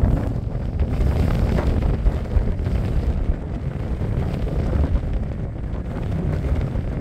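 Storm wind buffeting the microphone: a loud, gusty rumble.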